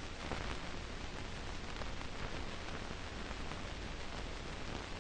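Steady hiss with faint crackle from the soundtrack of an old archival film; no other sound stands out.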